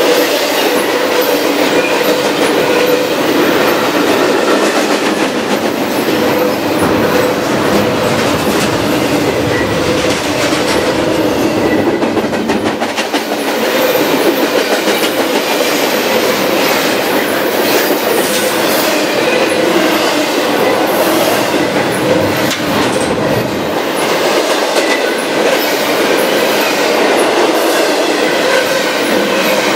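Double-stack intermodal container train's well cars rolling past at close range: a steady rumble of steel wheels on rail, with a dense run of clacks as the wheels pass over rail joints.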